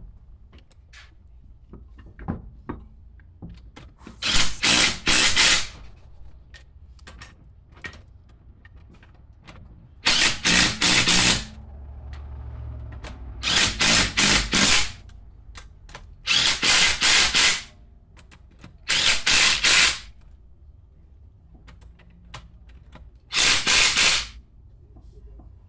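A handheld power tool run in six short bursts of about a second to a second and a half each, with a fast pulsing rattle, as suspension fasteners are driven during a rear toe adjustment.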